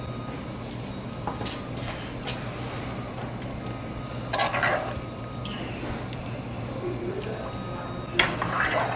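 Kitchen handling sounds over a steady low hum: a brief clatter about halfway through, then a spoon stirring and scraping thick tomato sauce in a cast-iron pot near the end.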